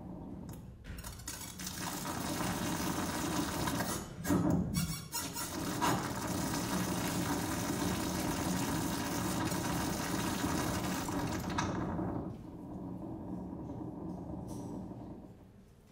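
Dense, harsh electronic noise from a voice-and-electronics noise piece, swelling in about a second in, with a stretch of rough crackling around four to five seconds. It drops to a lower, thinner noise at about twelve seconds and falls away near the end.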